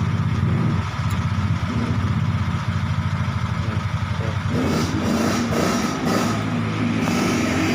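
An engine idling steadily with a fast, even pulse. From about halfway there are also light clinks and clatter of metal parts being handled.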